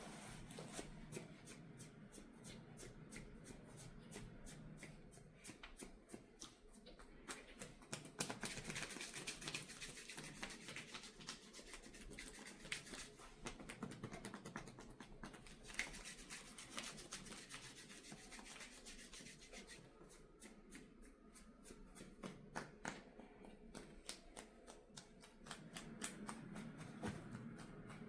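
Hands rubbing and pressing on a person's skin and hair during a head and face massage, close to the microphone: soft, continuous rubbing with many small crackles.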